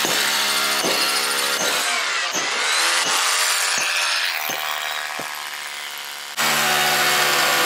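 Handheld electric power tool running under load, its motor pitch sagging and recovering with short dips. About six seconds in it jumps back up to a steady full-speed run.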